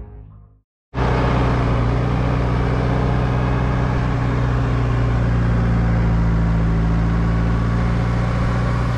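Four-wheel drive driving along a sandy beach, heard from inside the cabin: a steady engine drone with tyre and road noise. It starts abruptly about a second in.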